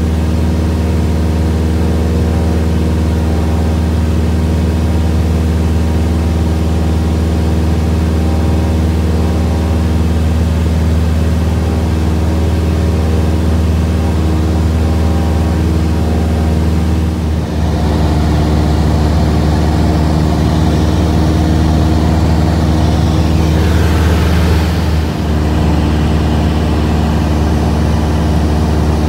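Cessna 172's piston engine and propeller droning steadily in the cabin during a climb, an even low hum with hiss over it. The tone shifts slightly a little over halfway through, and a brief rush of hiss comes near the end.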